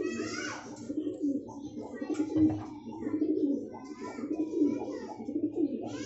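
Domestic pigeons cooing, a continuous run of low, wavering coos.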